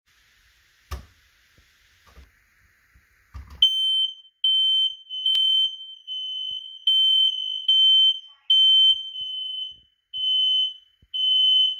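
A ceiling smoke alarm sounding its high-pitched alarm tone while its test button is held with a pole, in a string of loud beeps, each under a second long with short breaks. The alarm starts about three and a half seconds in, after a sharp tap about a second in.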